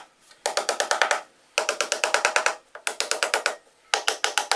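A hammer rapidly tapping 1.5-inch trim nails through PVC garage door weather stripping into the door jamb. The strikes come in four quick runs of many light blows each, with short pauses between, and each blow rings.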